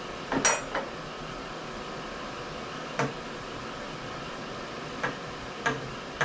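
Steel tooling being handled at a Brown & Sharpe milling machine's vertical head: a quick cluster of metal clinks and knocks about half a second in, then single knocks around three, five and six seconds in, as an adapter is worked off the spindle.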